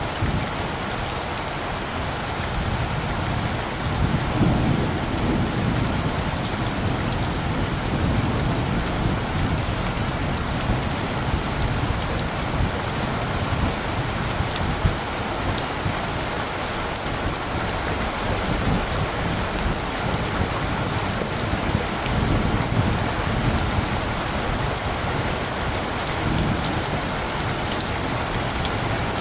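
Steady rain pattering down, with light thunder rumbling low. The thunder swells about four seconds in and again past the twenty-second mark.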